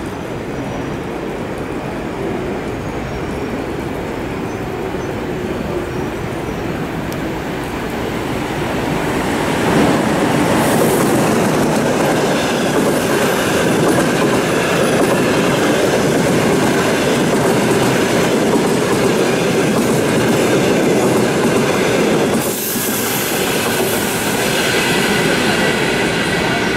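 ЭП20 electric locomotive and its passenger coaches passing at speed: a steady rumble that grows louder about ten seconds in as the locomotive goes by, then the coaches rolling past with the clatter of wheels over rail joints.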